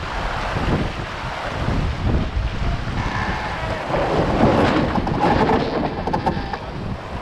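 Wind buffeting the camera microphone over the rush of water along a sailing yacht's hull, getting louder a few seconds in.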